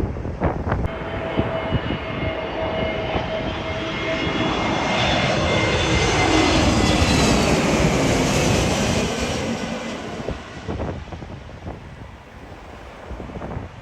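Airliner's engines passing close by on a landing approach, growing louder to a peak and then falling in pitch as the plane goes past. Gusts of wind buffet the microphone.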